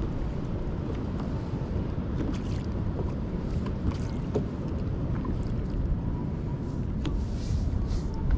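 Wind buffeting the microphone in a steady low rumble, with light water splashing and lapping against a kayak's hull in short, scattered sounds.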